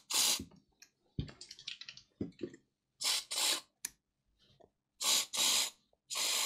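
Short hissing bursts of a WD-40 aerosol can, some in quick pairs, spraying penetrating oil into a reciprocating saw's stiff blade clamp to free it. Light clicks and scrapes of the clamp being worked come between the first bursts.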